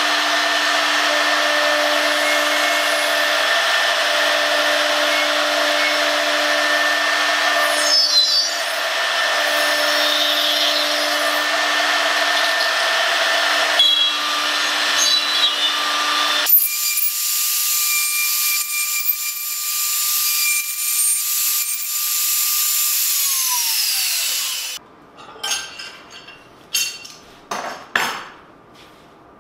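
High-speed electric spindle of a woodworking boring and routing machine running with a steady whine as its straight bit cuts slots into wooden blocks. Near the end the spindle winds down with a falling whine, followed by a few light knocks.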